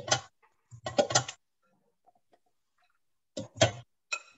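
Kitchen clatter: about four short knocks and clatters a second or so apart, as cooked buttered corn is handled and moved into a food processor.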